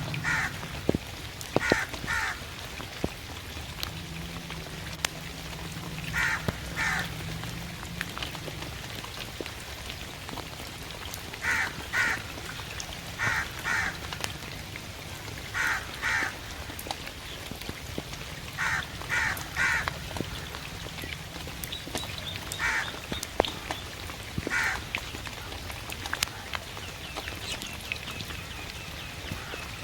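Crow cawing in short groups of two or three calls every few seconds, over steady rain with drops tapping on a surface.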